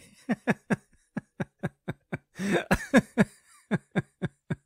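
A man laughing in short, repeated pulses, about four a second, in several bouts that stop and start again.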